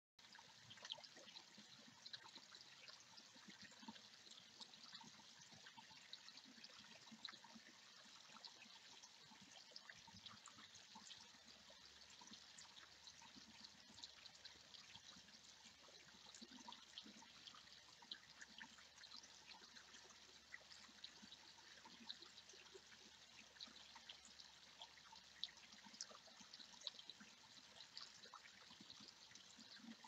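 Faint, steady trickle of a small garden-pond waterfall running over rocks into the pond, with many small drips and splashes.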